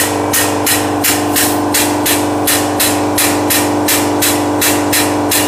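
Air-operated double-diaphragm pump chugging along as it pumps used diesel motor oil: a short hiss of exhaust air with each stroke, about three a second, over a steady hum.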